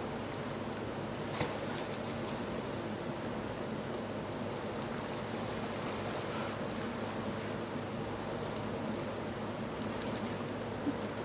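Steady rushing and sloshing of water in a dolphin pool, with splashing as bottlenose dolphins swim through it. Two brief sharp clicks, one about a second and a half in and one near the end.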